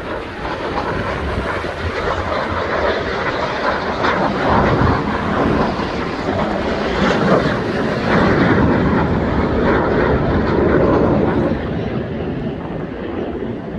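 Red Arrows BAE Hawk jets passing over, their turbofan engines giving a jet noise that swells over the first few seconds, stays loud through the middle and eases off near the end.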